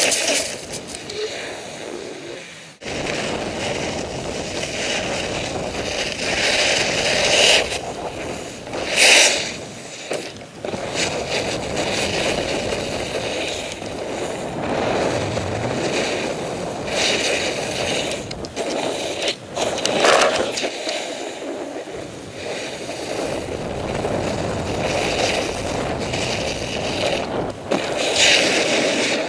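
Snowboard carving through snow: a continuous hiss and scrape of the board on the snow, mixed with wind rushing over the microphone. It swells louder several times as the board digs in and sprays snow.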